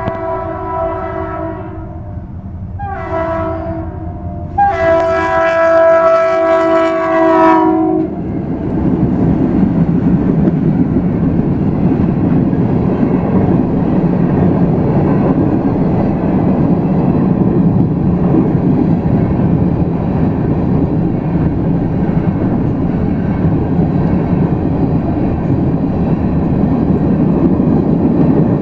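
Freight locomotive air horn sounding three blasts, the last the longest and loudest, as the train approaches. From about eight seconds in, the steady rumble and wheel clatter of covered hopper cars rolling past.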